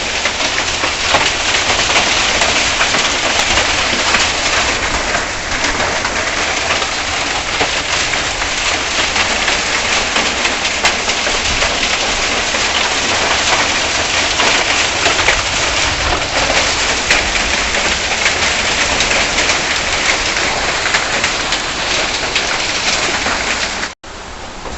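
Hail and heavy rain pelting down: a loud, dense, steady clatter of countless small impacts. It cuts off abruptly near the end and resumes more softly.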